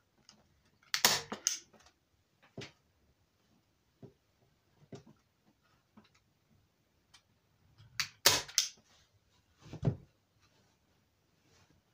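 Hand staple gun driving staples: several sharp snaps, a quick group about a second in and another around eight seconds, with single ones between and near the end.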